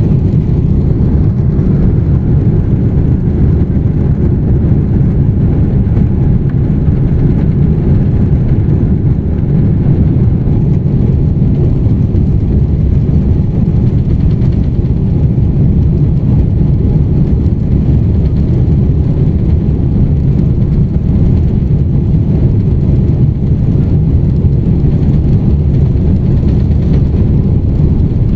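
Steady, loud, deep rumble of a Boeing 777's jet engines and the aircraft rolling on the ground, heard inside the passenger cabin.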